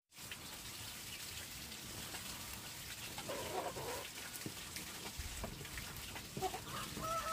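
Faint outdoor background with scattered light clicks; just before the end a chicken starts a long, steady call.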